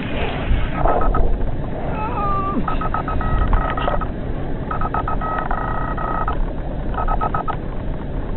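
Fishing reel drag buzzing in repeated bursts of about half a second to a second and a half: a big wels catfish running and taking line during the fight. Under it is a steady rumble of wind and water.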